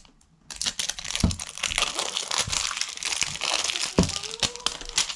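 The wrapper on a Barbie Color Reveal doll's plastic tube being torn and peeled off, crinkling and crackling without a break from about half a second in, with two thuds of the tube being handled, about a second in and near four seconds.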